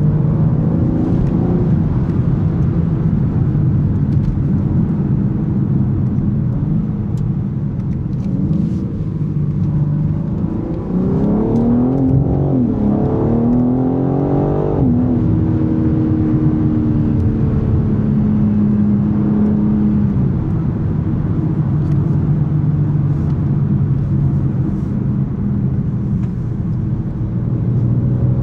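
BMW M3 Competition's S58 3.0-litre twin-turbo straight-six running at a steady cruise, then accelerating hard about ten seconds in: the engine note climbs, drops briefly once for an upshift, climbs again and falls away suddenly as the driver lifts, before settling back to a steady cruise.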